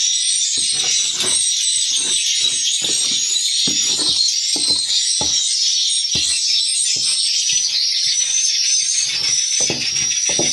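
Dense, unbroken high twittering and chirping of many swiftlets. Underneath, frequent irregular low knocks and scrapes.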